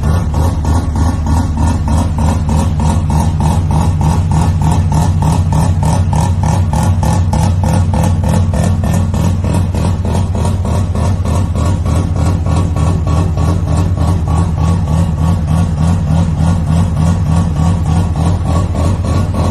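First-generation Mazda RX-7 (FB) rotary engine idling steadily, its exhaust a fast, even pulsing with no revs.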